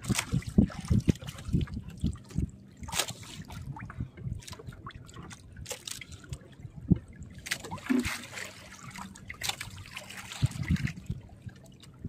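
Sea water splashing and trickling, with scattered sharp knocks and clatter throughout.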